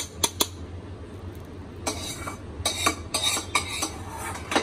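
A metal spoon tapping sharply three times against a steel mixer jar, then scraping and clattering on steel as roasted dry coconut is knocked off it, ending with one more sharp tap.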